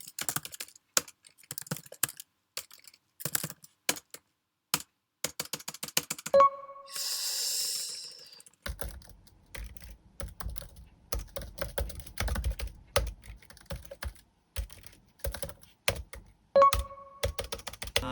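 Typing on a computer keyboard: a dense, irregular run of key clicks. A short ringing tone with a hiss after it comes about six seconds in and again near the end, and a low rumble sits under the typing from about nine seconds on.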